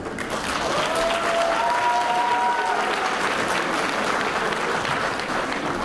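Audience applauding steadily, with a few drawn-out cheers over it during the first three seconds.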